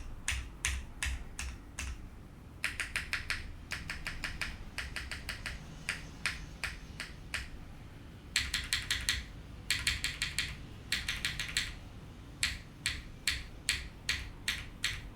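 Typing on a Nuxros +84 TKL mechanical keyboard with Cherry MX Black linear switches on a PEI plate under GMK keycaps: single key strokes broken by several quick runs of rapid keypresses.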